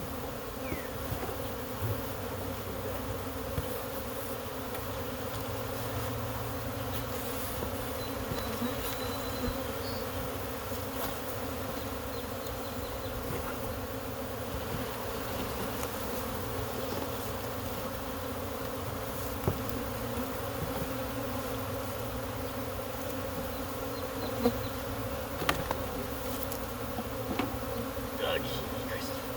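Honey bee swarm buzzing, a dense steady hum of many bees in flight, with a few sharp clicks. The bees are stirred up after being shaken from a box into a hive.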